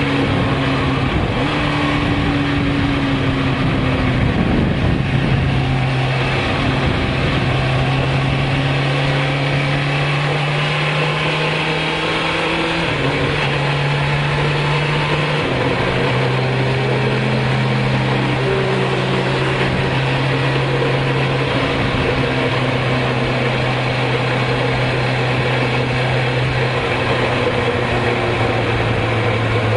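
Onboard sound of a 1996 Suzuki GSX-R 750's inline-four engine running at a steady mid-range speed, with wind rushing over the bike. The engine note steps down in pitch twice, about halfway through.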